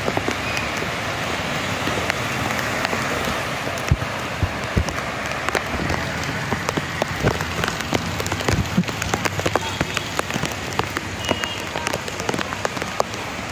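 Heavy monsoon rain pouring onto a flooded street and paving: a steady hiss, with many sharp raindrop hits close by.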